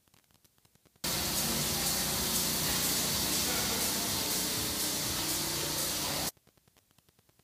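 Steady hiss of room noise with a faint low hum. It cuts in abruptly about a second in and cuts off just as abruptly near the end, with near silence on either side.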